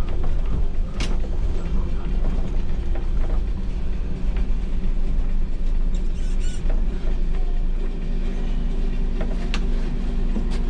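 MAN Lion's City NL283 city bus heard from the driver's cab while driving: steady diesel engine and road rumble, with a few short rattles and creaks from the cab fittings. A steady humming note joins about eight seconds in.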